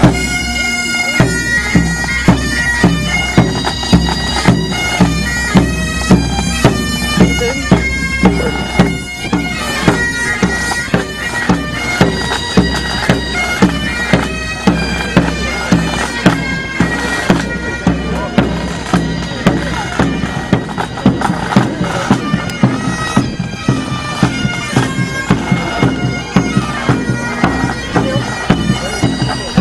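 Pipe band playing a march: bagpipes sounding their drones under the chanter melody, with bass and side drums beating a steady marching beat.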